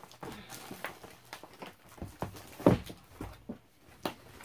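Cardboard kit box being opened and handled: card and paper rustling with scattered light taps, and one louder thump a little past the middle.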